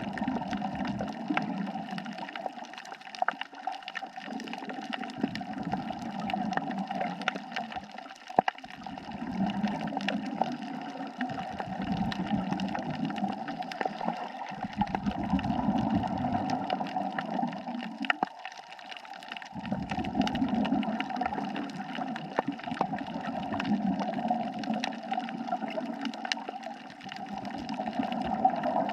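Underwater recording of a scuba diver's exhaled bubbles rushing out in bursts every few seconds, over a steady hiss with scattered sharp clicks.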